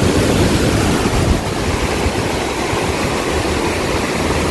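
Water rushing steadily through the barrage gates, a continuous roar.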